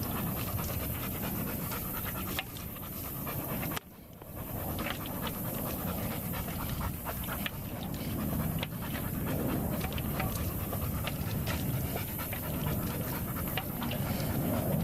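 A dog panting hard and steadily, with scattered light clicks over it and a brief gap about four seconds in.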